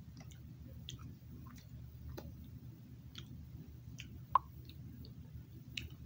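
Mouth sounds of someone chewing cotton candy: scattered small wet clicks and smacks over a low steady hum, with one louder click about four seconds in.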